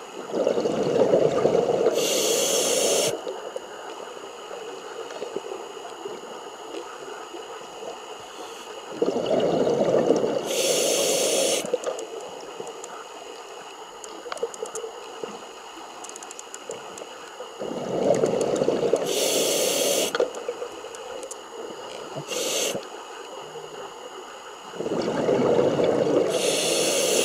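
Scuba diver breathing through a regulator: four breaths about eight seconds apart, each a burst of exhaled bubbles lasting two to three seconds, with a short hiss from the regulator.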